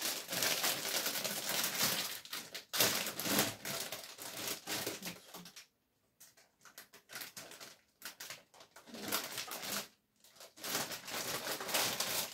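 A plastic bag of tortilla wraps crinkling and rustling in irregular bursts as it is opened and a tortilla is pulled out, with two short pauses.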